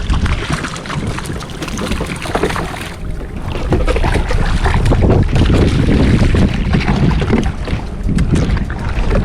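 Wind buffeting the microphone over choppy sea around a kayak, a loud low rumble with scattered splashy crackles, growing louder about three and a half seconds in.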